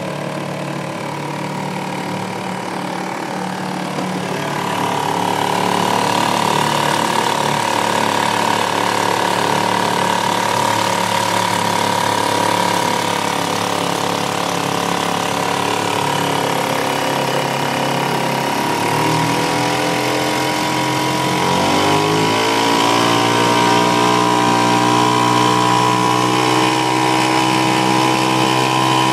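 1969 Eska Golden Jet 3.5 hp two-stroke outboard motor running under way at low throttle. About twenty seconds in it is opened up: the engine note rises over a couple of seconds and holds at a higher speed.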